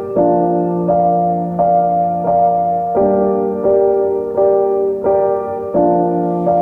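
Background music: a piano or electric piano playing soft sustained chords, a new chord struck about every two-thirds of a second.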